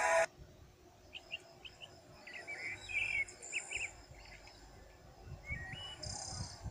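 Music cuts off at the very start. Then come faint bird chirps, a scatter of short, separate notes that rise and fall in pitch.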